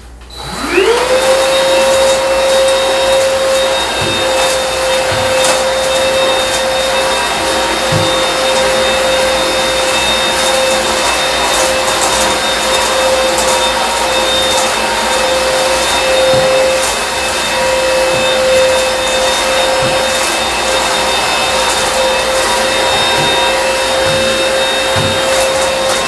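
Eureka RapidClean Pro cordless stick vacuum switched on, its motor whining up to speed within the first second and then running steadily, with scattered small clicks of debris being sucked up.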